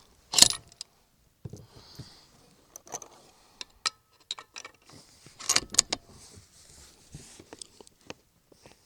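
Metallic clicks and rattles of the bolt-action rifle being handled between shots. There is one sharp click about half a second in and a quick cluster of loud clicks around five and a half seconds in.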